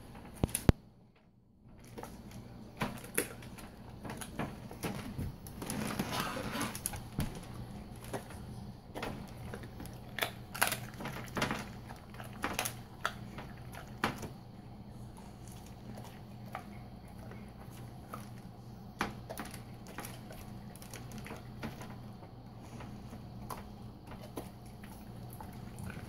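A Belgian Malinois chewing raw chicken drumsticks: irregular crunches and sharp cracks of bone, a few seconds apart at times and in quick clusters at others.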